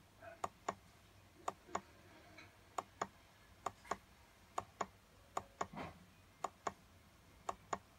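Clicks from an HP laptop being worked to step through photos in a photo viewer. They come in quick double clicks, a press and a release, about one pair a second and at slightly uneven intervals.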